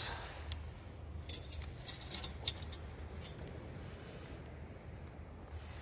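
A few light clicks and clinks of small camp kit being handled, over a low steady rumble.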